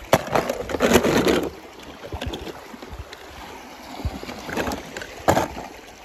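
A toy car splashing into water, with water sloshing. There is a splash just after the start lasting about a second and a half, smaller splashes and knocks in the middle, and another sharp splash about five seconds in.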